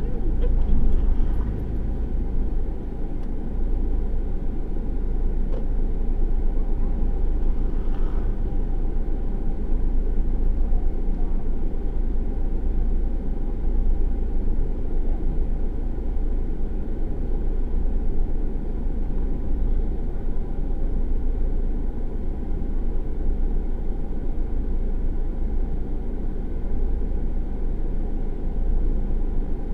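Car driving along a village road, heard through a dashcam inside the cabin: a steady low rumble of engine and tyres.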